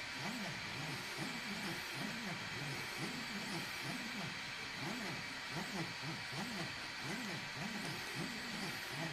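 EasyThreed K10 mini 3D printer at work: its stepper motors give short rising-and-falling whines, about two or three a second, as the head and bed move back and forth, over a steady fan hiss.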